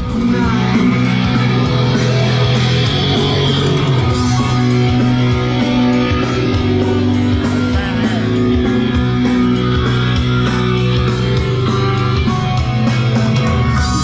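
Rock music with electric guitar and a steady drum beat.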